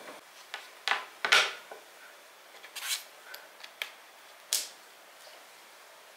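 Handling sounds of a closed MacBook Pro laptop being set down and slid into place on a desk: a handful of sharp knocks and short scrapes, the loudest a little over a second in.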